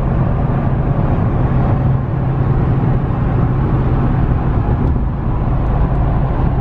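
Steady road and engine drone heard inside a pickup truck's cabin while cruising at freeway speed, with a strong low hum.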